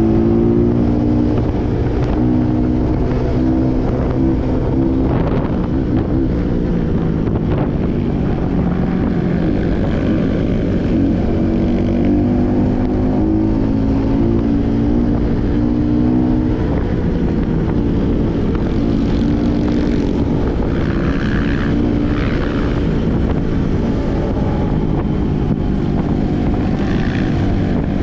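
Trail motorcycle engine running as it is ridden, its pitch rising and falling with the throttle.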